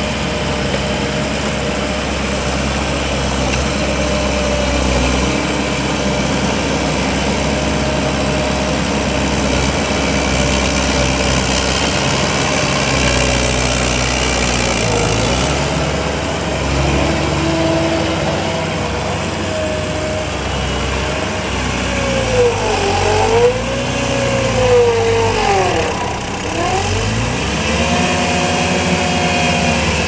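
Gehl SL 5640 tracked skid steer loader working, its diesel engine running steadily under load while it pushes dirt. In the last several seconds the pitch swings up and down repeatedly, like whines rising and falling as the machine works.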